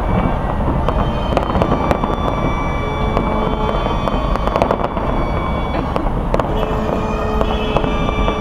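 Aerial fireworks display: a dense, unbroken barrage of bangs and crackling over a continuous low rumble.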